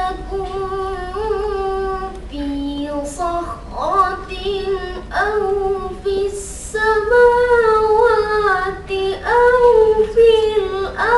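A boy's voice reciting the Quran in melodic chanted style: long held notes with ornamented turns of pitch, sung in phrases with brief breaks between them.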